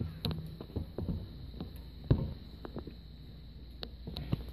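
Pringles potato crisps being bitten and chewed, giving irregular crisp crunches and crackles, one louder about two seconds in, over a faint low hum.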